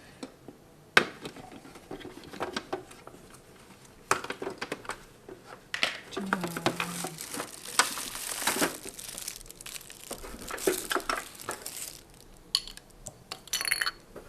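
Hard plastic parts and accessories of a dehumidifier being handled: scattered clicks and knocks, with plastic wrapping crinkling for several seconds in the middle.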